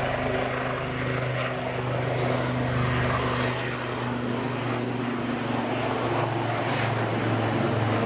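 Propeller aircraft flying past, its engine a steady drone.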